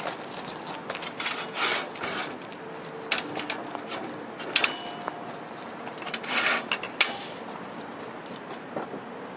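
A folding Madramps flatbed ramp being unfolded: metal ramp rails scraping, sliding and clanking into place, with a brief metallic ring about halfway through and a longer slide a little after six seconds. Footsteps on gravel come at the start.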